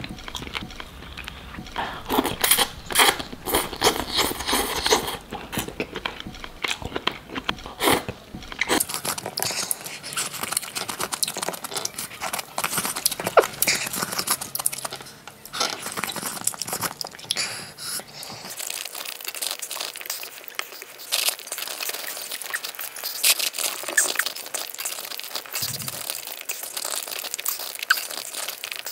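A person eating malatang close to the microphone: wet chewing and crunching of noodles and vegetables, with the clicks of chopsticks against the ceramic bowl. The crackling is busiest in the first nine seconds or so.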